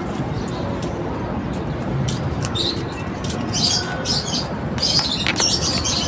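African lovebirds chirping in short, shrill bursts in the second half, over a steady background rush.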